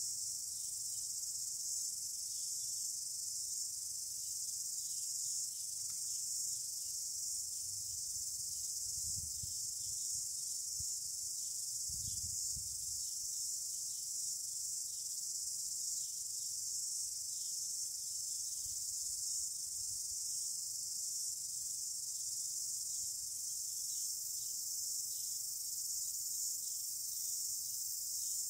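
Steady, high-pitched chorus of insects such as crickets, an unbroken shrill hiss with no pauses.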